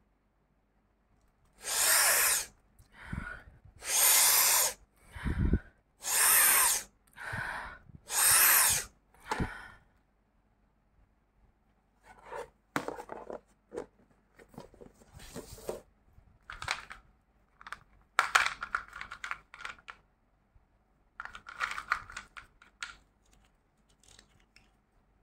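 Fingers scraping and crunching through a plastic tub of crushed naphthalene crystals: about five loud gritty scrapes, each under a second, in the first ten seconds, then quieter scattered crunches and clicks.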